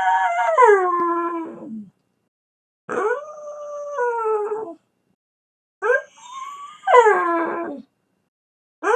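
Dog howling: three drawn-out howls with pauses between, each sliding down in pitch at the end.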